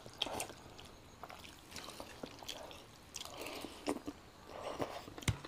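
Close-up eating sounds of noodles: soft slurping, chewing and wet mouth noises, with a few short clicks scattered through.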